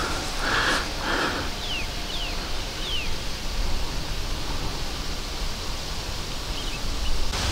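Steady outdoor ambience with rustling noise, and three quick falling bird chirps about two to three seconds in.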